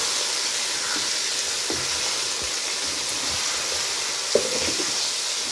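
Chicken pieces sizzling in hot oil in a frying pan as they are stir-fried (bhuna) with a slotted spatula, a steady hiss throughout. There is one short clack about four seconds in.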